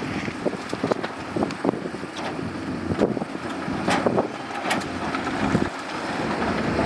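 Shantui bulldozer at work: the diesel engine running under a dense rumble, with irregular clanks and knocks from the tracks and the gravel it pushes.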